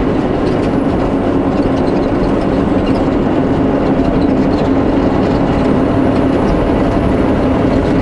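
Semi-truck engine and tyre noise heard inside the cab while driving on a snow-covered road: a steady drone with a constant hum running through it.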